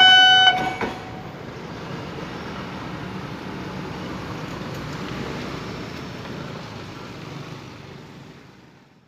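Level-crossing warning signal sounding a steady high tone over loud passing-train noise, both cutting off about half a second in. After that a quieter steady rumble of street traffic and idling motorbikes fades out near the end.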